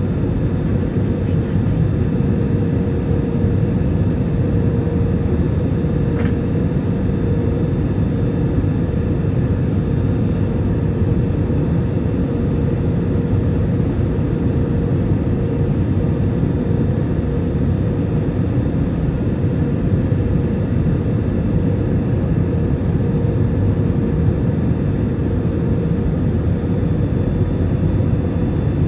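Jet airliner cabin noise from a window seat beside the underwing turbofan engine during the descent to land: a steady, deep rush of engine and airflow with a constant hum.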